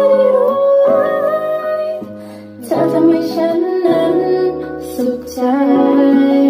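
Two women singing a duet into microphones over instrumental backing, in long held notes. There is a short break in the phrase about two and a half seconds in.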